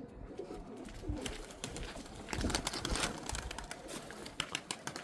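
Domestic pigeons cooing softly, with scattered short clicks and taps.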